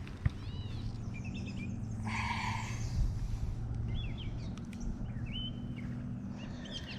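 Small birds chirping and calling in repeated short, rising and falling notes over a steady low outdoor rumble, with a single knock just after the start and a brief rushing noise about two seconds in.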